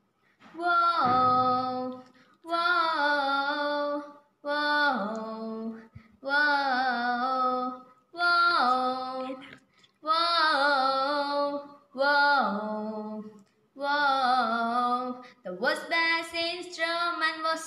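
A girl singing solo and unaccompanied, in long held phrases of about two seconds each with short breaths between. Near the end the notes become quicker and shorter.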